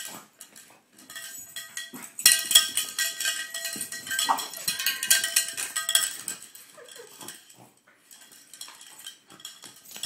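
Small cowbell clanking and rattling in quick irregular strikes as a French bulldog bites and shakes it, busiest and loudest in the middle few seconds, then thinning out.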